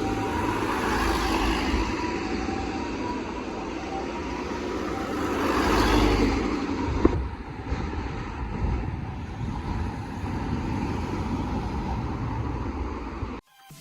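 Ambulance on an emergency run passing in traffic, with faint harmonic-siren tones over road noise in the first few seconds. The road noise swells to its loudest about six seconds in, then eases. The sound cuts off suddenly near the end.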